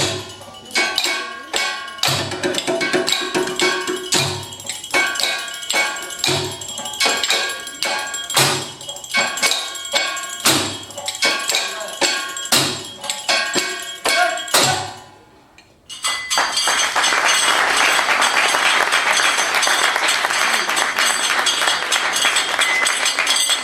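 Live percussion music: heavy struck hits about every two seconds, lighter strikes between them, and metallic ringing tones that hang on between the hits. The hits fade out, and a little past halfway a dense, steady rushing noise starts suddenly and keeps on.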